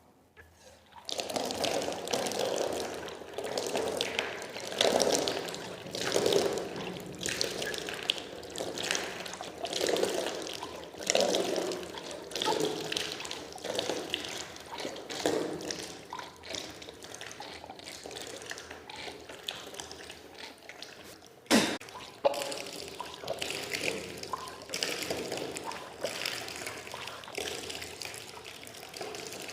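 A person vomiting up swallowed water in repeated gushes that splash down, the self-induced water purge of jala dhauti (vaman dhauti) stomach cleansing. One sharp knock about two-thirds of the way through.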